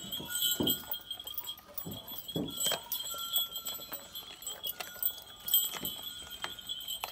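Sheep bleating a few times, with livestock bells tinkling.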